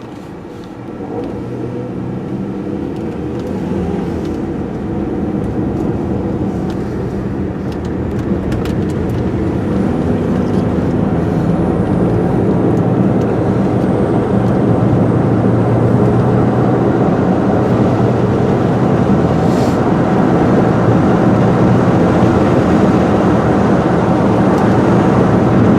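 Car engine and road noise heard inside the cabin, growing louder from about a second in as the car pulls away from a stop and gathers speed.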